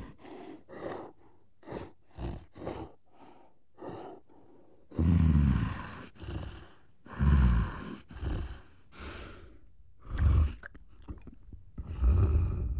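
Giant gorilla vocal sound effects: a run of short huffing breaths and grunts, then several louder, deep grunts that drop in pitch, about five, seven, ten and twelve seconds in.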